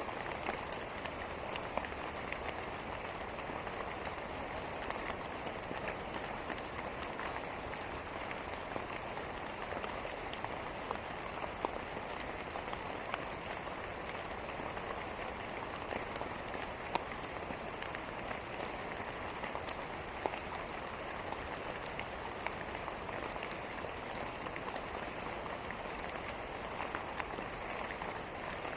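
Steady rain falling: an even hiss sprinkled with many small, sharp drop ticks.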